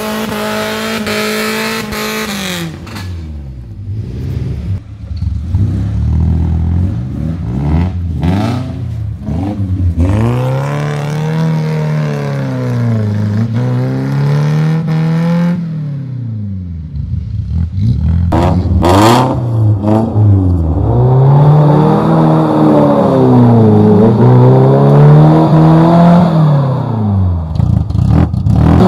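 Off-road 4x4's engine revved up and eased off again and again, its pitch swelling and falling every two to three seconds, with a few sharp knocks; it gets louder in the second half.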